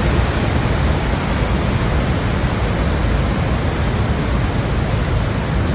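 Niagara's Horseshoe Falls heard close to the brink: a loud, steady rush of falling water, heaviest in the low end, with no let-up.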